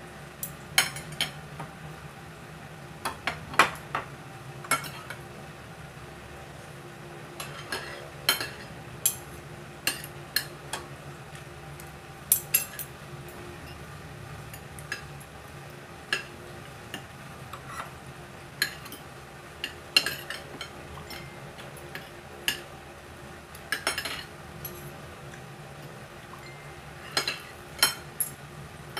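Fork and spoon clinking and scraping against a ceramic plate while eating, in sharp irregular clicks every second or two, over a low steady hum.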